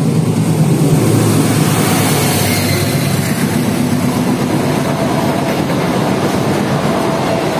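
Diesel locomotive and a long rake of passenger carriages running through the station at speed without stopping. The locomotive is loudest in the first second or so, then comes a steady rush of wheels on rails as the carriages pass.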